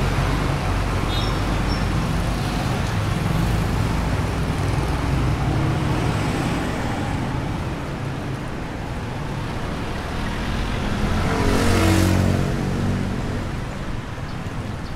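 City street traffic: a steady rumble of vehicle engines and tyres, with one engine vehicle passing close and loudest about twelve seconds in, then fading.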